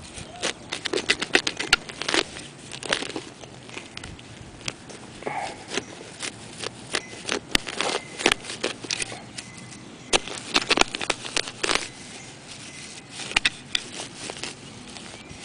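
Steel hand digger cutting into grass turf: sharp crackles, tearing and scrapes as the blade goes through roots and dry thatch, in several bursts.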